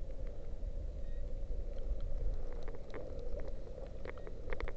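Steady low rumble on the microphone with a few short faint clicks, most of them near the end.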